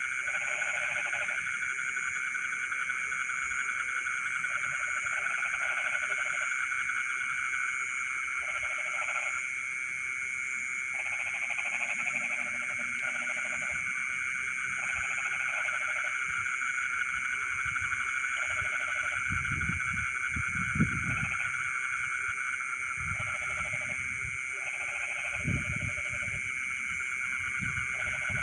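A chorus of frogs in flooded rice fields at night: a steady high-pitched trilling under repeated lower croaking calls about a second long, coming every second or two. A couple of brief low thumps stand out in the second half.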